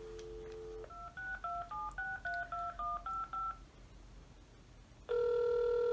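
Telephone handset placing a call: a dial tone for about the first second, then ten quick touch-tone key beeps as the number is dialled, a pause, and the ringback tone starting about five seconds in as the line rings.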